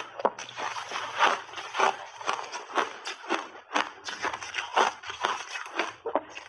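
Crushed refrozen ice crunching in quick, irregular crackles as a gloved hand scoops through it and packs a large clump out of a plastic tub.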